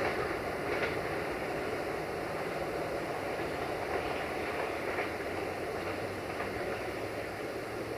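Loaded open freight wagons rolling away along the track: a steady rumble of wheels on rails with a few faint clicks, growing slightly fainter.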